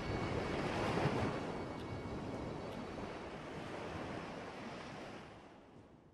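Wind rushing over an SJCAM SJ4000 action camera's microphone on a moving bicycle, with road and tyre rumble underneath; it fades away near the end.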